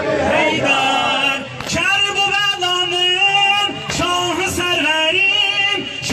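A man singing an Ashura mourning lament (noha) in long, wavering, ornamented lines. A few sharp beats sound about two seconds apart.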